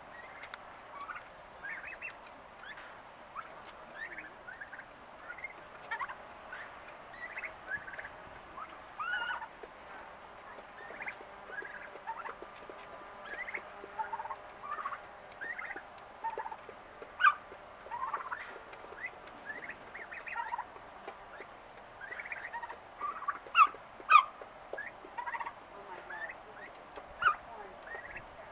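Young turkeys calling on and off: short, high yelps and peeps, one or two a second, overlapping from several birds. A few sharp louder clicks or knocks stand out, two close together about two-thirds of the way through.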